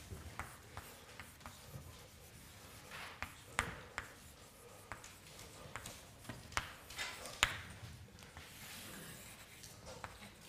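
Chalk writing on a blackboard: a run of short taps and scratches as the letters go down, then a longer scrape about nine seconds in as the heading is underlined.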